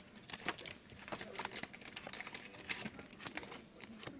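Trading cards being handled and sorted: a faint, irregular run of light clicks and rustles of card stock.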